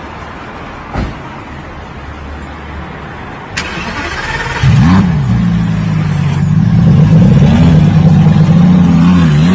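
A thump about a second in, then the starter of a Lamborghini Gallardo's V10 cranks briefly. The engine fires with a quick rev flare and settles into a loud, steady idle.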